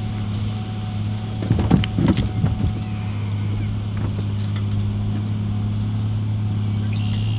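An engine running at a steady idle with a low hum, with a short bout of knocking and clattering about a second and a half in.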